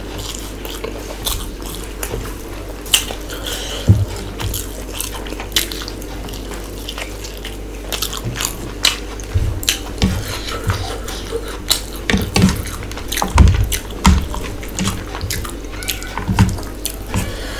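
Close-up wet chewing and lip-smacking of a person eating chicken pulao by hand, with irregular sharp clicks and a few dull thumps, most of them in the second half.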